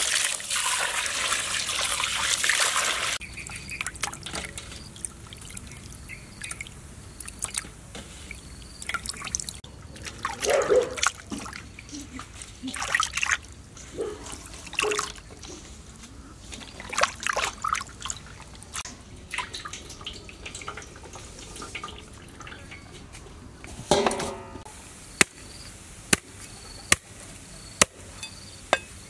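Water poured in a stream onto a fish in a steel basin for about three seconds, then scattered splashing and sloshing as the fish is rinsed by hand. Near the end, a cleaver chops steadily into a wooden chopping block, about six sharp strikes a little under a second apart.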